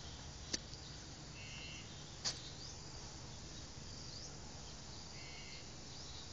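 Steady background hiss and low rumble, with faint short chirps and two sharp clicks in the first few seconds.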